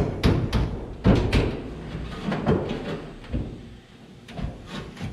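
Sheet-metal trunk dropout panel being worked into place in the car's trunk, knocking and scraping against the body in a series of irregular clunks and taps. The loudest knocks come at the start and about a second in.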